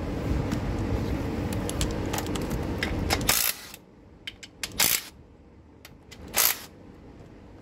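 Steady machine noise for about the first three seconds, then three sharp metallic clinks of tools and bolts against the aluminium balance shaft housing under the engine.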